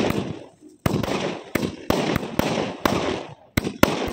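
A 60-shot aerial fireworks cake firing. About seven sharp bangs come at roughly two a second, each shell followed by a short decaying crackle.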